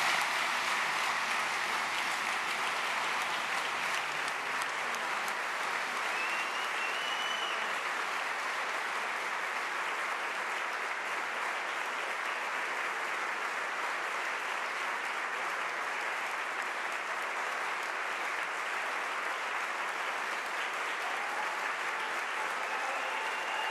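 A large congregation applauding, steady and sustained.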